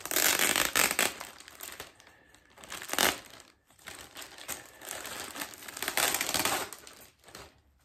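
Clear plastic bag crinkling and tearing as it is pulled open by hand, in bursts: a long one at the start, a short sharp one about three seconds in, and another around six seconds in.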